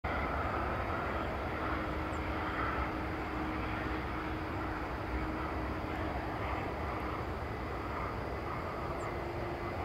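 Jet engines of a Boeing 737-700, CFM56-7B turbofans, heard from a distance as a steady rumble and hiss, with a faint steady hum running through it.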